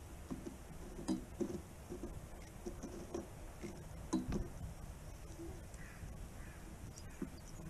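European goldfinch pecking and cracking seeds on a feeder tray close to the microphone: irregular short taps and clicks, the sharpest about four seconds in.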